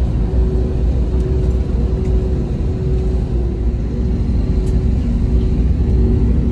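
Airliner's jet engines running, heard from inside the cabin as the plane rolls along the runway: a steady, loud low rumble with a hum, and a faint high whine coming in about halfway.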